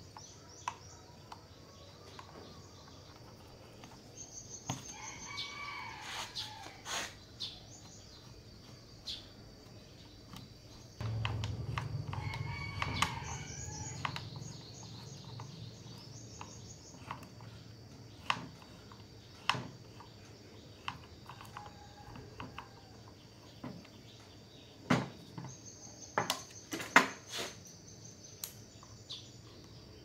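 A rooster crowing twice, a few seconds in and again near the middle, over a steady high insect tone. Scattered sharp clicks and knocks run throughout, the loudest near the end, and a low hum lasts about three seconds near the middle.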